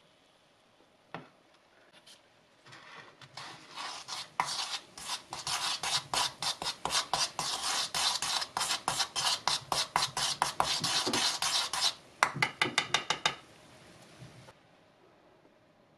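A spoon stirring baking-soda paste around a coconut-shell bowl, scraping against the shell in quick gritty strokes, about four a second. The scraping starts a few seconds in and stops near the end, with a single click about a second in.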